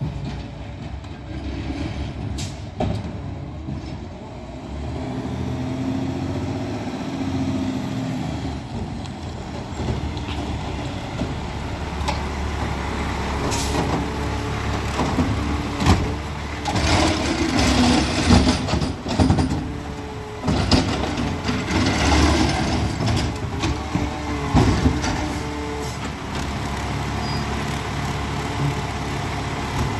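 Peterbilt 520 McNeilus ZR side-loader garbage truck running as it pulls up and stops, with a hiss of air brakes. Through the middle of the stretch there is a run of sharp knocks and clanks.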